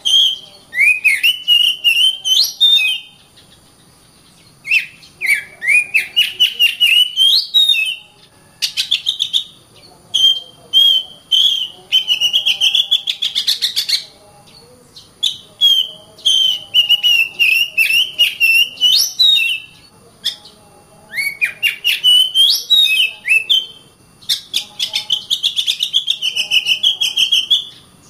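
Oriental magpie-robin (kacer) singing in repeated phrases of two to four seconds with short pauses between, each phrase mixing rapid clicking notes with rising whistled notes.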